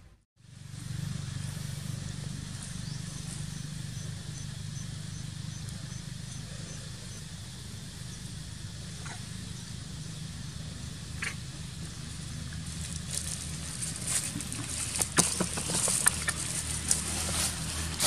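Outdoor ambience: a steady low hum. From about two-thirds of the way through come irregular crackling rustles in dry leaf litter.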